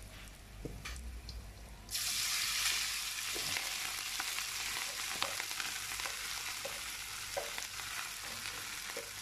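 Cooked rice tipped into a wok of hot oil, which starts to sizzle suddenly about two seconds in and then fries steadily, with a few light ticks and scrapes as the rice is pushed in by hand.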